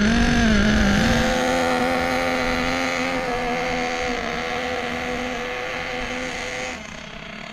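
Small single-cylinder two-stroke nitro glow engine of an O.S.-powered RC buggy running at a steady, moderate throttle during break-in on a slightly leaned mixture. Its steady note gradually fades and drops quieter near the end.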